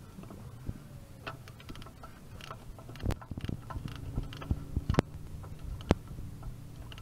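A ratchet clicking in short runs as the fill plug is tightened back into the manual transmission case, with two sharp metallic knocks about five and six seconds in.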